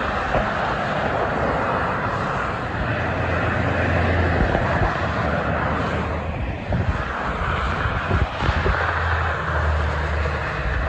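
Multi-lane highway traffic heard from above: a steady roar of tyres and engines, with a deeper rumble swelling twice as vehicles pass below. A few brief knocks come just past the middle.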